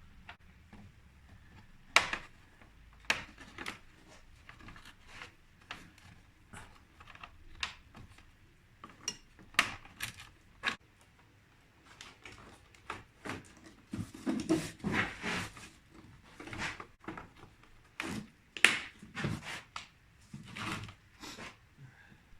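Irregular clicks, taps and light clinks of small hard objects being handled, getting busier in the second half, with the sharpest knocks about two seconds in and again near the end.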